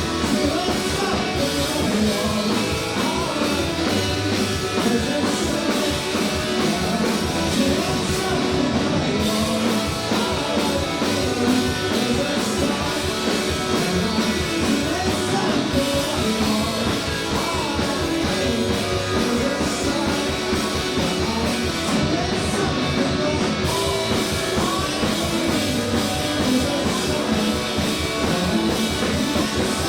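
Live indie rock band playing a song: guitars and a drum kit keep up a fast, steady beat under singing.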